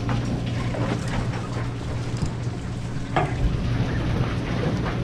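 Water splashing and sloshing as a hooked fish thrashes at the surface beside the boat, with a few sharper splashes, over the steady low hum of the boat's engine.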